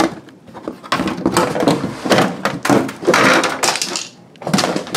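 Hard plastic knocking, rattling and scraping as an air purifier's cover and HEPA filter are handled, with a longer rustling scrape about three seconds in.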